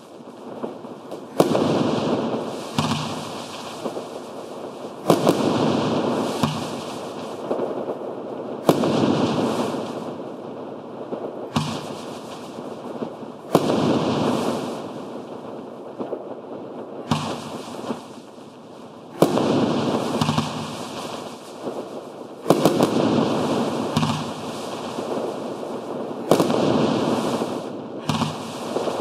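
A 500-gram consumer fireworks cake (Electric Lettuce, 24 shots) firing single shots every two to four seconds. Each shot is a sharp bang followed by a couple of seconds of dense crackling from the breaking stars.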